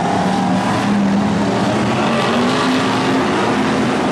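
Several BriSCA F1 stock cars' V8 engines running hard together in a race, a steady dense engine noise whose notes rise and fall as the cars accelerate and pass.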